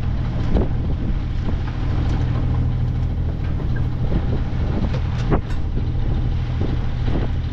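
Steady low drone of a sailing yacht's engine under way, with wind and water rushing past. A couple of short knocks come about half a second and about five seconds in.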